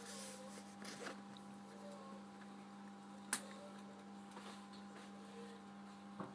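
Steady low electrical hum inside the cabin of a standing 701 series electric train, with faint scattered ticks and one sharp click about three seconds in.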